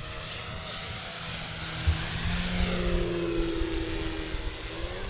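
Electric brushless motor and propeller of a large FMS Extra 330 radio-controlled plane running on 12S power during a fly-by, a whirring whine with a steady hiss. It gets louder as the plane passes close, loudest around the middle, then eases off.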